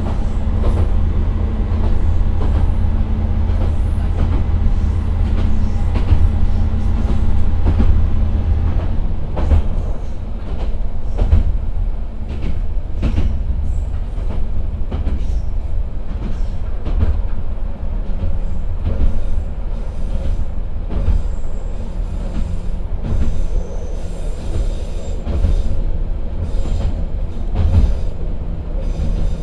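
Nissan Diesel PE6HT03 diesel engine of the Akechi 10 railcar working as the car climbs a grade and loses speed, heard from inside the car; its steady drone eases about nine seconds in. Wheels click over rail joints, with faint wheel squeal on the curve.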